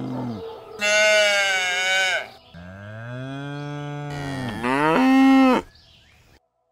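Cattle mooing: several long, drawn-out moos one after another, some sliding down in pitch, the loudest near the middle and just after it. They stop about a second before a brief silence.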